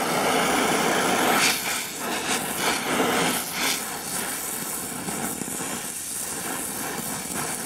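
Oxy-acetylene welding torch flame hissing steadily as it melts a puddle in steel plate with a filler rod being fed in. A few brief crackles sound about a second and a half, two and a half and three and a half seconds in.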